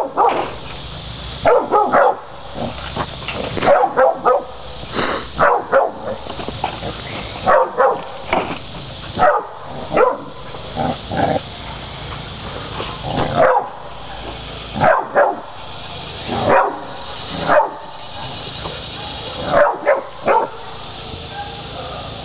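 Catahoula cur dogs bay-barking at hogs, about a dozen short bursts of one or two barks each, every second or two.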